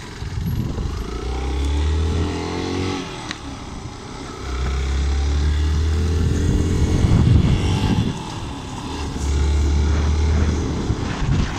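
Motorcycle engine running while the bike rides along, its pitch rising as it speeds up about a second in. There are three spells of heavy low rumble.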